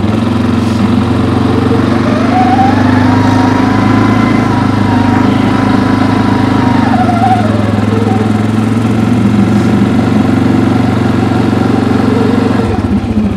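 2023 CFMoto CForce 500 ATV's single-cylinder engine running as the quad pulls away and turns a tight circle in two-wheel drive. The engine speed rises about two seconds in, holds, then drops back about seven seconds in, and settles lower near the end.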